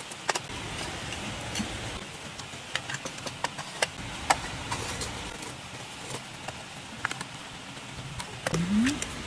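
Metal tongs and a steel ladle clicking and tapping against bowls and a curry pot as noodles and curry are served, over a steady low rumble. A short rising tone sounds near the end.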